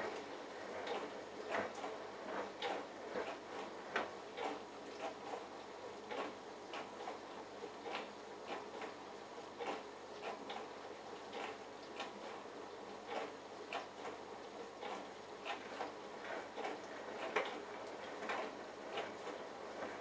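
Bosch Logixx WAS32461 front-loading washing machine tumbling its load in the prewash: water sloshing and the wet laundry splashing inside the turning drum, in irregular splashes about once or twice a second.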